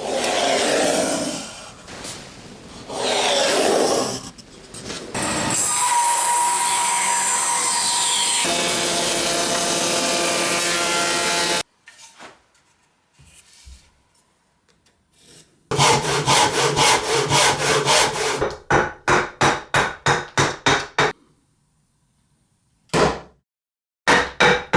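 A handsaw cutting timber in quick, regular strokes of about three to four a second, in several bursts with pauses between. Near the start there is a stretch of several seconds of steady, continuous noise from the woodworking.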